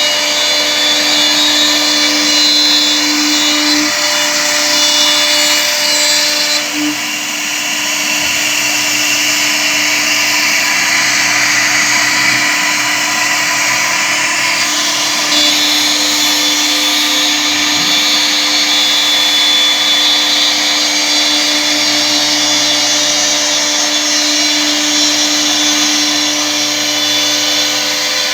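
2 kW air-cooled CNC router spindle running at high speed while its bit cuts wood: a steady whine over a loud cutting hiss. The cutting noise shifts about six seconds in and again about fifteen seconds in.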